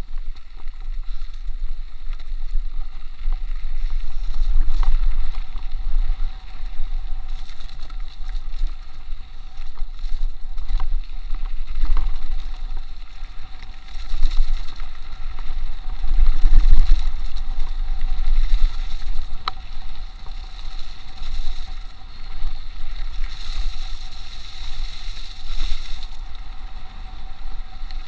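Wind buffeting a chest-mounted action camera's microphone as a mountain bike runs fast down a dirt trail, a rumble rising and falling with the speed, with the tyres' noise on the ground and a few sharp clicks and rattles from the bike.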